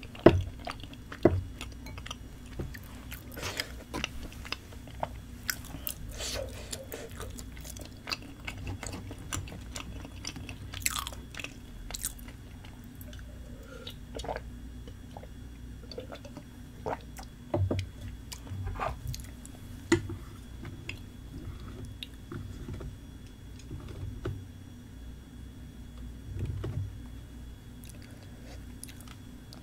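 Close-miked chewing and biting of chewy tteokbokki rice cakes in spicy sauce, with scattered sharp clicks and taps of spoon and chopsticks on the bowl.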